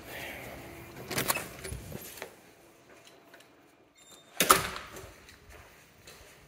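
A glass-paned exterior door's handle and latch clicking and rattling as the door is opened, about a second in. About four and a half seconds in comes a single loud knock as the door is shut, the loudest sound.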